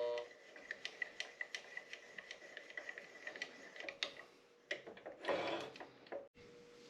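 Light, irregular clicking and ticking of small metal parts and tools being handled at a mini-lathe, with a short scrape about five seconds in.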